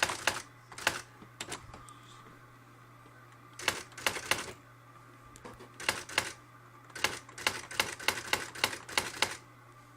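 Brother EM411 electronic typewriter printing as its keys are typed: irregular clusters of sharp print strikes with pauses between words, and a fast run of strikes near the end, over a steady low hum.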